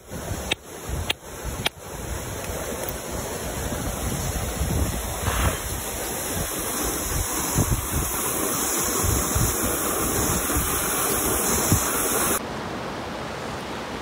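A rock hammer taps a stone nodule a few times in the first two seconds, knocking it open along its seam to reveal an ammonite. After that there is a steady rush of water with wind on the microphone, which turns quieter near the end.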